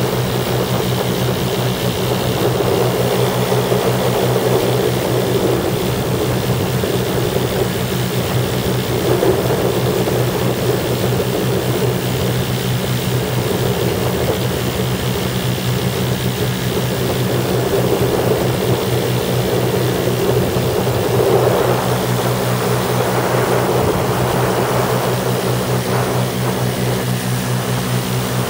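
Lazair ultralight's twin engines and propellers running steadily in level flight, a constant drone, with wind noise on the open-cockpit microphone rising and falling over it.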